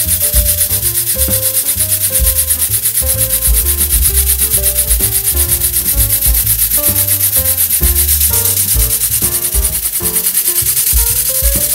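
Background music with a bass line and a melody, over a rapid, rhythmic hiss from a small brass single-cylinder model engine running fast.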